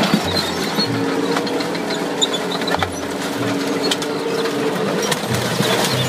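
A full-size tank's engine running with a steady drone and its tracks clattering as it climbs onto and crushes a minivan, with scattered sharp cracks and crunches.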